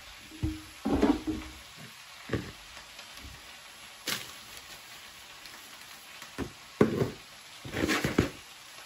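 Kitchen handling noises: a handful of separate knocks and short rustles as dry homemade breadcrumbs are tipped into a clear plastic bowl and bowls are moved on the tabletop, the loudest clusters about a second in and again near the end.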